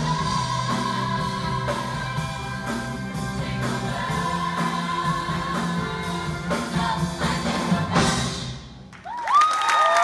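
Show choir singing over its accompaniment, holding the song's final chord, which ends about eight seconds in. A second later the audience starts applauding, cheering and whistling.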